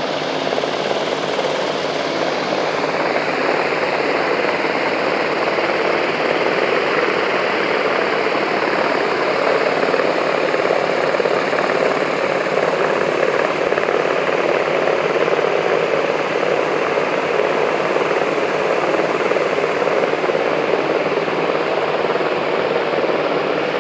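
Many bees buzzing together in an orchard, a dense, steady, loud hum with no breaks.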